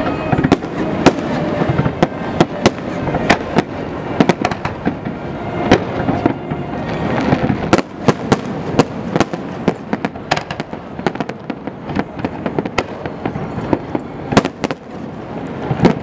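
Aerial fireworks display: shells bursting in quick, irregular succession, many sharp bangs a second over a continuous rumble and crackle.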